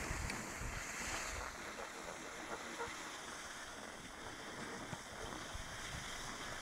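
Wind rushing and buffeting over a phone's microphone while skiing downhill, over a steady hiss of skis sliding on packed snow.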